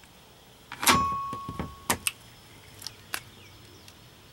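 Plywood cabinet door with a brass latch and hinges being unlatched and swung open: a loud knock with a brief ringing note about a second in, a second sharp knock a second later, then a few lighter clicks.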